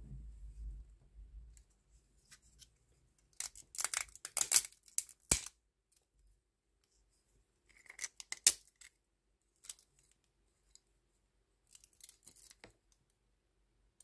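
Black PLA support lattice being snapped and peeled off a 3D-printed part by hand. It comes as four spells of crackling and snapping, the longest and loudest about four to five and a half seconds in, ending in one sharp snap.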